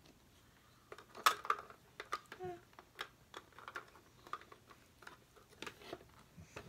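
Small plastic toy pieces clicking and tapping irregularly as they are handled and set in place on a Barbie toy closet, with a sharper clack about a second in.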